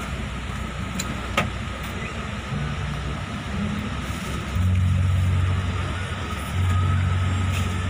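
Inside a moving coach bus: engine and road rumble in the cabin, with a louder low drone for about a second halfway through and again near the end. There is a single sharp click about a second and a half in.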